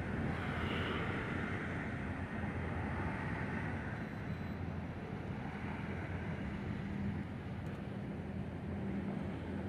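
Steady traffic noise from passing cars, with a low engine hum underneath.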